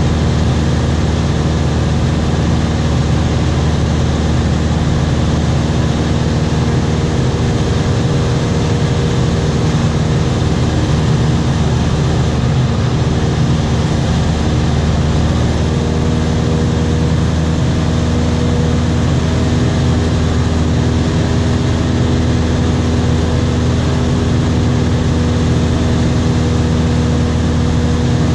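Light aircraft's engine and propeller in steady cruise, a constant drone with the rush of airflow, heard from inside the cabin.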